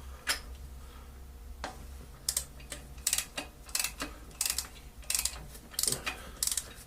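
A socket ratchet clicking in short, evenly repeated strokes, about three strokes every two seconds, after a few single clicks at the start. It is working a spark plug loose from the engine's cylinder head.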